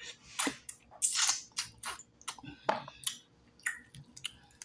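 Biting into and chewing deep-fried turtle meat: irregular crunches and clicks from the crispy fried coating and mouth.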